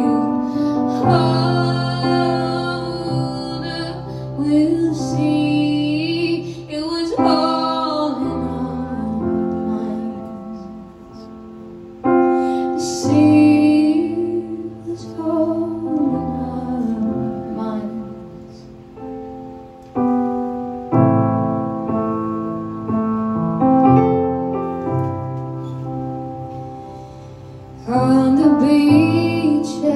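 Slow live ballad: a woman's voice singing long, wavering wordless notes over sustained piano chords. The voice drops out about eight seconds in, returns briefly around thirteen seconds, and comes back near the end, while the chords go on and change every few seconds.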